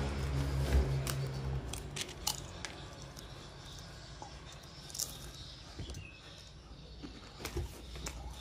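A motor vehicle's engine hum passes and stops about a second and a half in, followed by faint scattered clicks and crunches.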